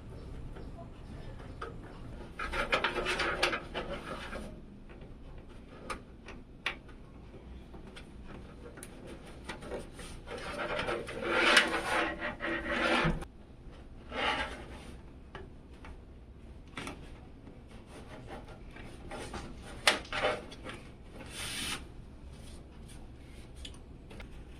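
Computer parts being handled during assembly: several spells of rubbing and scraping, with scattered clicks between them.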